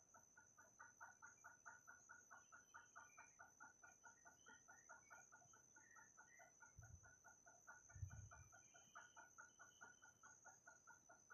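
Faint, rapid, regular clucking of a chicken, about four or five clucks a second, with a few higher chirps among them, over a steady high-pitched whine. Two dull low thumps come about seven and eight seconds in.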